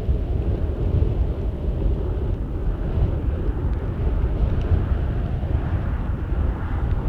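Low, steady rumble of an aircraft's engines.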